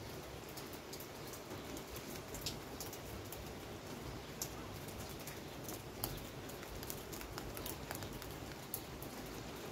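Steady rain falling, with scattered sharp taps of single drops striking close by.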